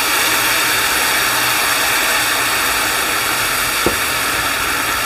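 Water poured into a hot non-stick frying pan of sautéed onions, bell peppers and spices, sizzling in the hot oil with a loud, steady hiss as a silicone spatula stirs it. There is a light tap about four seconds in.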